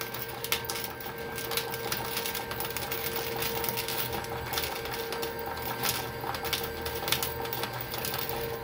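Coin-operated fruit slot machine paying out winnings: its coin hopper drops coins into the metal payout tray in a rapid, irregular run of clicks and clinks, while the credit counter counts down. A steady electronic tone from the machine sounds underneath.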